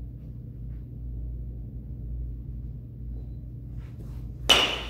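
A baseball bat strikes a ball once, about four and a half seconds in, with a sharp ringing ping, over a low steady hum.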